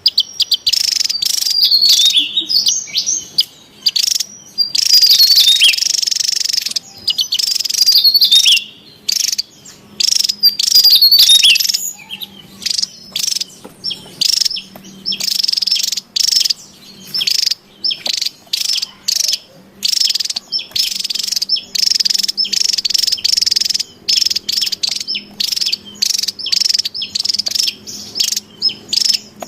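Javan tesia calling excitedly: rapid, high chirps in quick series, with several runs of notes falling quickly in pitch in the first half, then strings of short repeated chirps.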